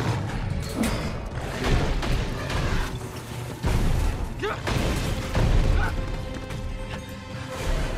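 Action film soundtrack: a music score over crashing metal and impacts, with a heavy boom a little before the middle as debris smashes down.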